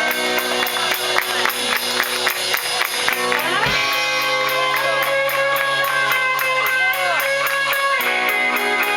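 Live indie rock band playing, electric guitars strummed to the fore over a quick, steady beat.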